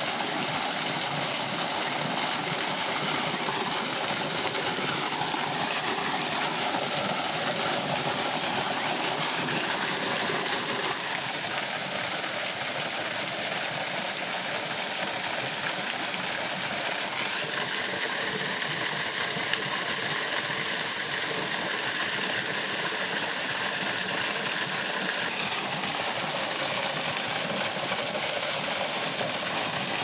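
Steady rushing and splashing of spring water falling from a carved dragon-head spout, a small waterfall, with a slight change in tone about a third of the way in.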